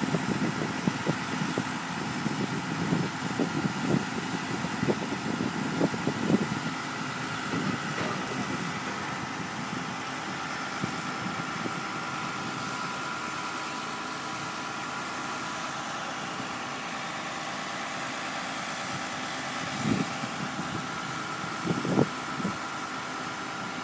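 Engine of construction machinery running steadily at idle, with irregular low thumps for the first several seconds and two more near the end.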